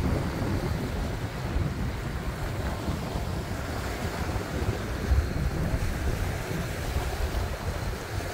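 Strong wind buffeting the microphone in gusts, a low rumble, over the wash of small waves breaking on a sandy beach.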